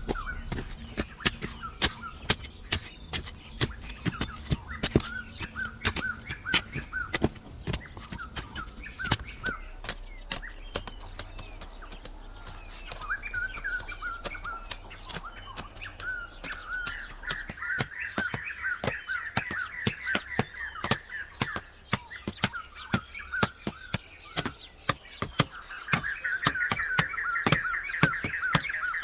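Hand hoes chopping into dry, stony soil, many sharp strikes a second and loudest near the end, with birds chirping steadily behind.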